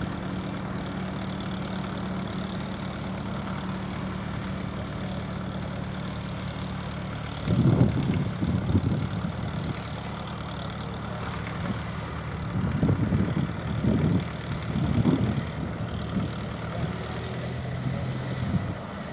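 International B-275 tractor's four-cylinder diesel engine running steadily while ploughing. Several irregular louder bursts of noise come in the second half.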